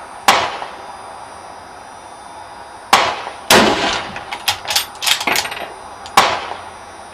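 French MAS 36/51 bolt-action rifle in 7.5 French being fired in quick succession, several sharp shots each with a ringing tail. A quick run of smaller sharp clacks falls between the later shots.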